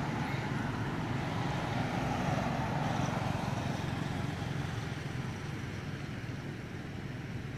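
A car driving past on the road: engine and tyre noise that swells a couple of seconds in, then slowly fades away.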